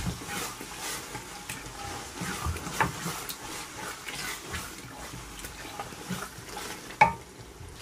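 Wooden spoon stirring a thick tomato and pepper base frying in oil in an aluminium pot: soft wet stirring sounds, with a sharp knock about seven seconds in.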